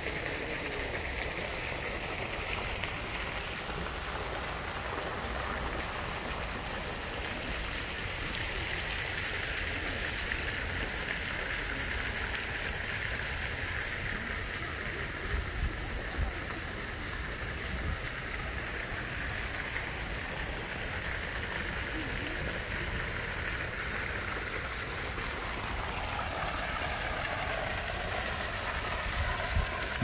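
Steady rushing of a small stream of water flowing between rocks, with a low rumble underneath.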